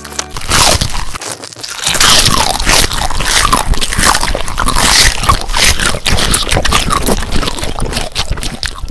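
Loud crunching and scraping eating sounds, a monster biting and chewing through crisp food, with a brief lull about a second and a half in and short falling squeaks mixed among the crunches.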